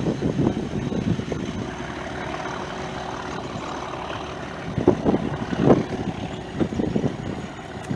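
Class 37 diesel locomotive's English Electric V12 engine working under power as it pulls away and fades into the distance. A few louder low buffets come about five seconds in.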